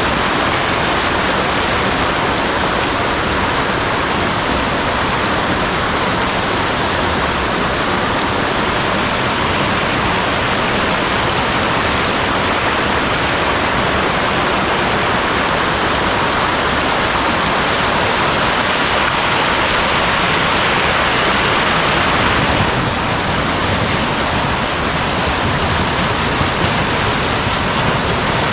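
Mountain valley stream rushing loudly over rocks and small falls, a steady, unbroken roar of water. About three-quarters of the way through, the rush shifts slightly and drops a little in level.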